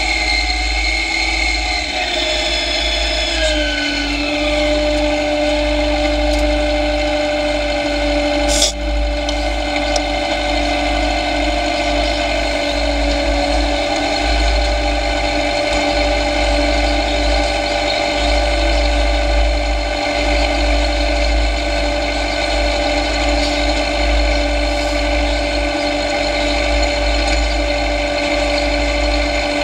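John Deere tractor running steadily with a whining mechanical drone; its pitch drops over the first few seconds, then holds level. A single sharp click is heard about nine seconds in.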